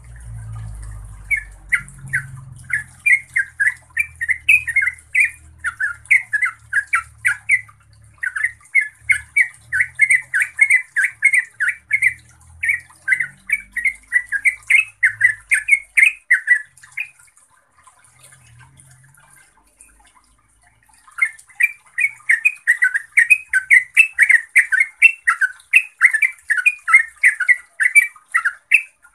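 Yellow-vented bulbul singing long runs of fast, chattering notes at about three to four a second, with a pause of a few seconds past the middle.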